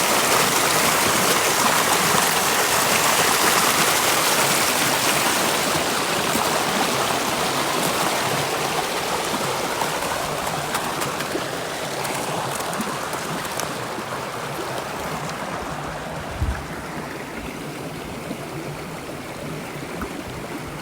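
Water of a stream running steadily, growing gradually fainter, with a single low bump about three quarters of the way through.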